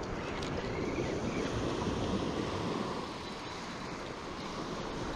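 Small surf waves breaking and washing up a sandy beach, with wind buffeting the microphone; the wash is louder for the first three seconds, then eases.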